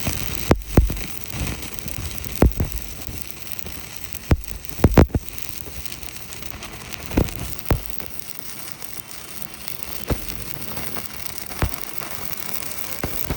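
Electric welding arc crackling and hissing steadily, with occasional sharp pops from spatter.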